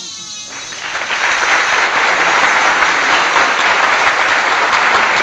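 Loud, steady crowd applause that starts about half a second in as the music stops.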